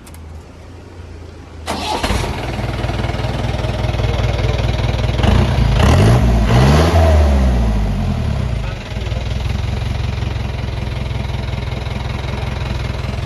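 Mahindra jeep's engine starting about two seconds in through a newly fitted SC Project aftermarket exhaust, revved a couple of times around the middle, then settling into a steady idle.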